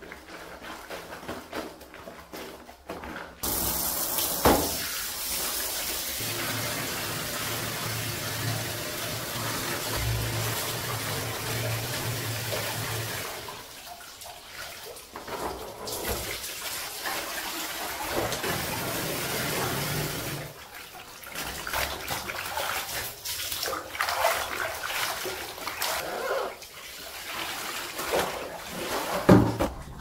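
Water running and splashing, switched on suddenly about three seconds in. It runs steadily for about ten seconds, then comes and goes in stretches with short pauses. A couple of sharp knocks stand out, one soon after it starts and one near the end.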